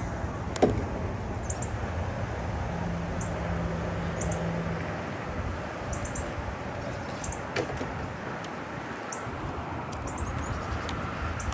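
Short high bird chirps repeating every second or so over a low steady rumble, with one sharp knock about half a second in.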